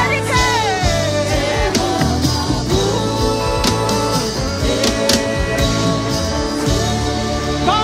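Live gospel worship band music: a drum kit and keyboard playing under a singing voice that slides through long runs.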